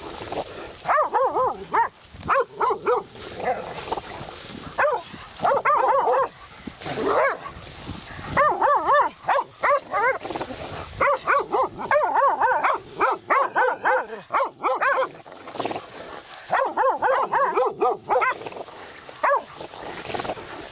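Laika hunting dogs barking at a badger in quick runs of sharp, high barks with short pauses between them, the excited bay of dogs holding quarry.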